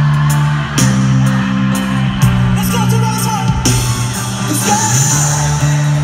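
Loud live concert music heard from the audience through a phone: a slow R&B song with singing over held deep bass notes and regular drum hits.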